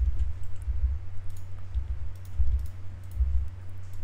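Scattered clicks of a computer keyboard and mouse, with dull low thuds in between.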